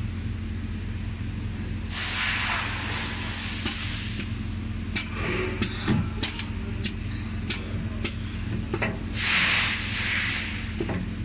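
Pneumatic assembly machine running: two bursts of compressed-air hiss, a couple of seconds each, with a string of sharp metallic clicks in between, over a steady low machine hum.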